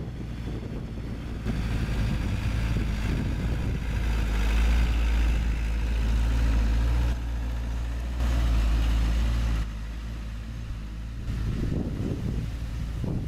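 Diesel engines of small loaded dump trucks running as they drive along a dirt track: a deep engine rumble with wind noise on the microphone. It gets louder abruptly about a second and a half in and drops back near the end.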